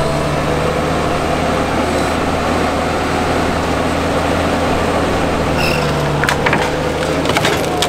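Ride-on street sweeper's engine running steadily as the machine is worked off its trailer, with a few sharp knocks near the end.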